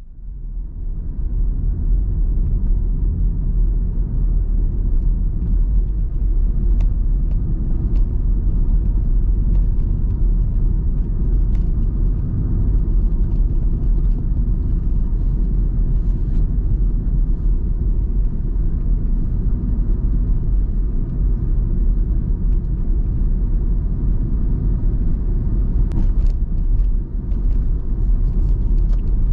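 Steady low rumble of a car driving, heard from inside the cabin, fading in over the first second or two, with a few faint clicks now and then.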